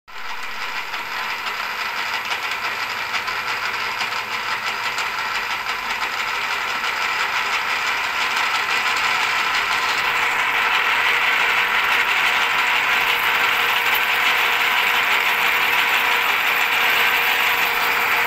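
Milling machine running at 315 RPM under power feed, drilling into a 4340 chromoly steel blank: a steady geared mechanical running noise that grows gradually louder, turning harsher about halfway in as the drill bites into the steel.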